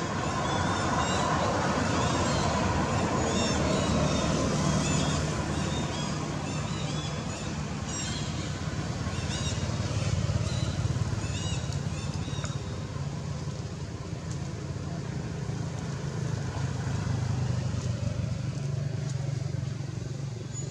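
Engine drone of motor traffic on the road, swelling and fading a few times, with small high chirps over it in the first part.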